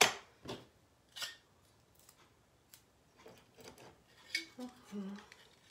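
Clear Scotch tape roll being picked at with a fingernail to find its loose end, giving a scattered series of short, sharp clicks and small scratchy crackles. The loudest click comes right at the start.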